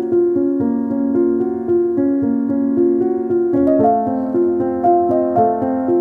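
Background music: a keyboard melody of short repeated notes over held chords, shifting to new notes about three and a half seconds in.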